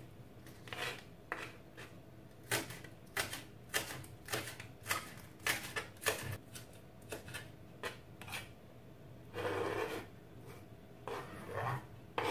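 Kitchen knife chopping spring onions on a plastic cutting board: a series of sharp, uneven knocks, about two a second. After about nine seconds the chopping stops and longer scraping sounds follow, the chopped onion being scraped and slid off the board.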